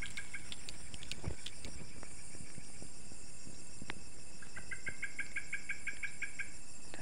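Night insects chirring steadily, with a rapid trill of about seven pulses a second lasting about two seconds near the end, and a few faint clicks.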